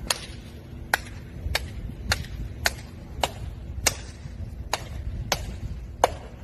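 Sharp hand claps, about two a second in a slightly uneven rhythm, over a low rumble.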